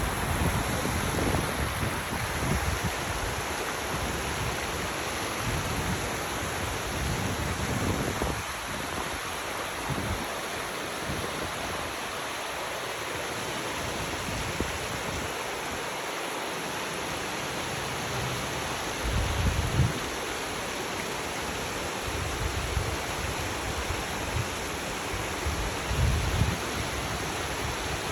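Valley stream running steadily, with irregular low rumbles that come and go, the strongest about two-thirds of the way through and near the end.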